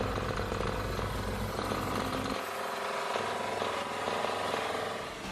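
Engine of heavy road-paving machinery running steadily; the deep rumble drops away a little over two seconds in.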